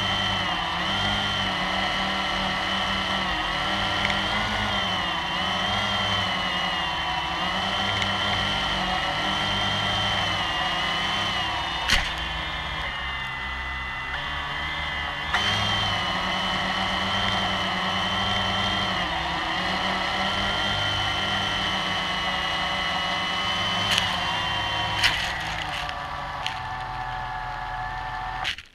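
Blade 350QX quadcopter's electric motors and propellers whirring, the pitch wavering as the throttle shifts, with a few sharp knocks. The whir cuts off suddenly near the end as the motors stop with the drone on the ground.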